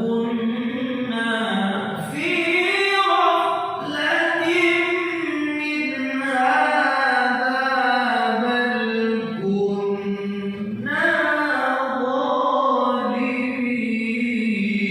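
Arabic-style singing: a voice holding long, ornamented notes that slide up and down between short breaks, with no words made out.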